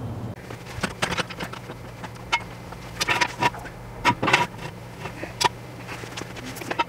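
Steel jack stands clanking and clinking against each other, the concrete floor and the car's underside as they are set and adjusted under a car's front end: a dozen or so sharp metallic knocks at irregular intervals, over a steady low hum.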